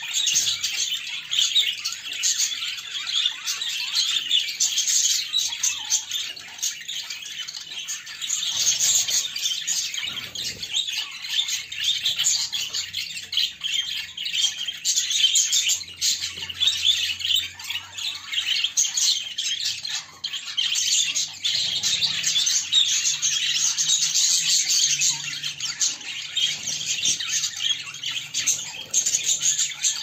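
A group of budgerigars chattering and chirping without a break, many quick high chirps overlapping.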